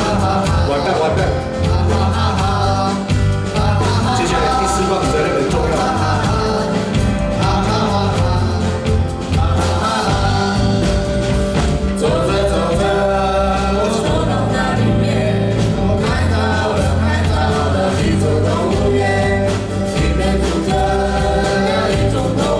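Live band playing a song: a sung vocal melody over a steady bass line and drum beat.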